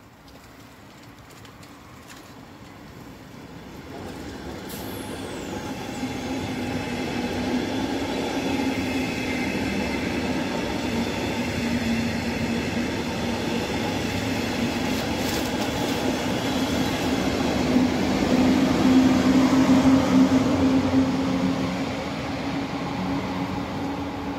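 Electric double-deck regional push-pull train passing close by: rolling wheels on the rails build up over the first few seconds, then run steadily with a low hum. The sound is loudest about three-quarters of the way through, as the electric locomotive pushing at the rear goes by, and then eases off.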